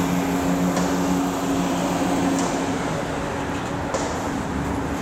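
Freight train cars rolling slowly past, a steady rumble with a sharp click about every one and a half seconds. A steady low hum fades out about three seconds in.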